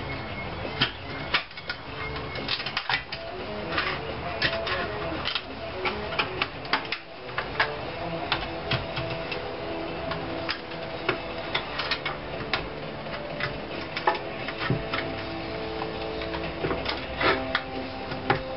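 Irregular metallic clicks and taps of a hand tool levering and pressing on the edge of a thin sheet-steel panel as its tabs are bent over.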